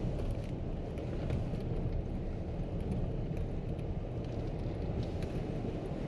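Steady low rumble inside a car cabin as it rolls slowly over cobblestone paving: engine and tyre noise with faint scattered ticks.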